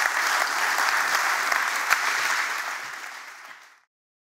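Audience applauding. The clapping dies down a few seconds in and then cuts off suddenly.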